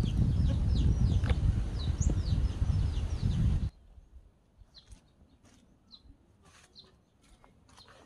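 A bird calling with repeated high, falling chirps, about two a second, over loud low rumbling noise; both cut off abruptly about three and a half seconds in, leaving near silence with a few faint clicks and chirps.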